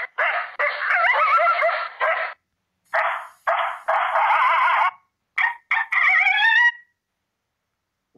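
Recorded coyote calls played back by a predator-call app: a series of short clips with barks and yips, the last a string of rising yipping cries. It stops about seven seconds in.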